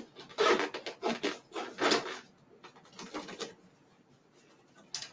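Vinyl wheelchair seat and back cover being pulled and worked into place against the frame: a run of short rubbing, rustling scrapes, the loudest in the first two seconds.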